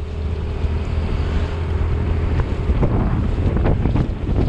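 Wind rushing over a riding action camera's microphone on a moving scooter: a loud, steady low rumble with gusty buffeting. A faint steady hum sits underneath for the first couple of seconds.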